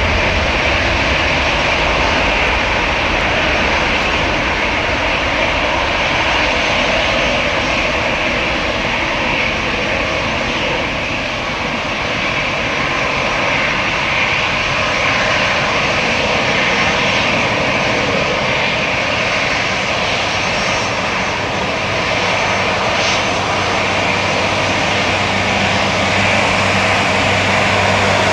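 Airbus A320-214's CFM56 turbofan engines running at low taxi power as the airliner rolls along the taxiway: a steady jet whine over a rushing roar.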